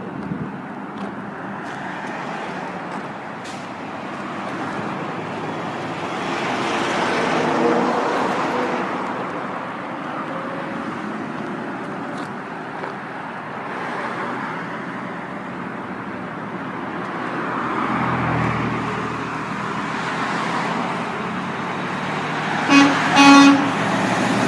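Road traffic going by, vehicles swelling and fading as they pass, then near the end a truck horn sounds two short toots close together.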